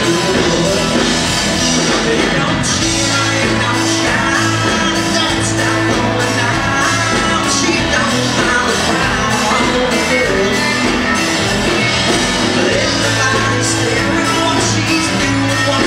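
Live country-rock band playing loud: a male lead vocal sung into a handheld microphone over electric guitar, bass guitar and a drum kit with cymbal hits.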